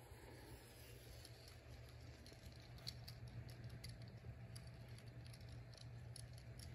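Faint, distant hum of a small four-wheeler's engine as it is ridden in circles over snow, with scattered light clicks and taps close to the microphone.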